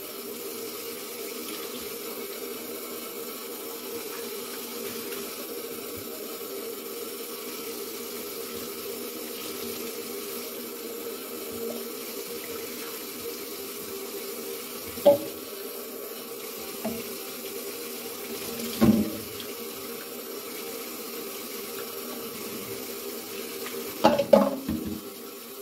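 Kitchen tap running steadily into the sink while a wire refrigerator shelf is washed under it, with a few short knocks about halfway through, and again near the end.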